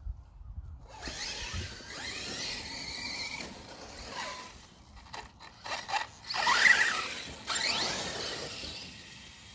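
Brushless electric motors of Arrma Kraton 6S and Outcast 6S RC cars whining, rising and falling in pitch as the cars accelerate and slow. Loudest about two-thirds through as one car passes close.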